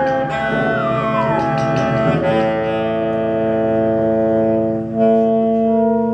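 Live improvised ensemble music: a theremin's pitch glides downward through the first two seconds over a saxophone, then the players settle into a held, sustained chord that shifts to new notes about five seconds in.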